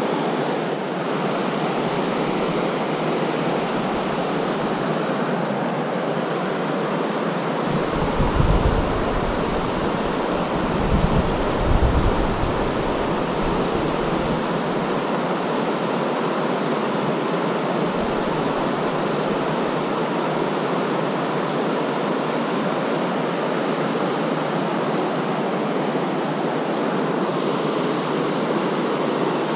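Steady rush of whitewater river rapids, with two brief low rumbles about a third of the way in.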